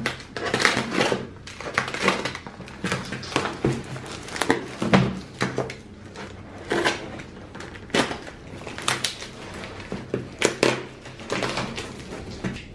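Utility knife slicing through packing tape and cardboard on a taped cardboard package, the tape and cardboard crackling and crinkling in irregular bursts.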